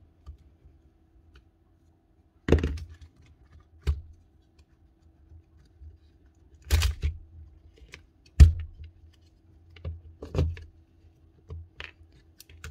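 About seven irregular knocks and clicks as the plastic housing and metal parts of a brushed DeWalt cordless drill are handled and set down on a workbench during disassembly.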